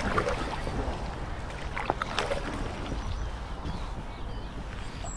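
Kayak paddling: paddle blades dipping and water washing along the hull of an inflatable drop-stitch tandem kayak, with a steady low rumble of wind on the microphone. A couple of sharper splashes come about two seconds in.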